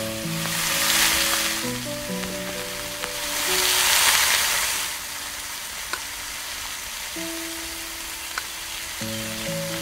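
Oil sizzling on a small hot griddle as flattened dough rounds fry on it. The sizzle swells louder twice, first about half a second in and again from about three to five seconds in, and a couple of faint clicks come later.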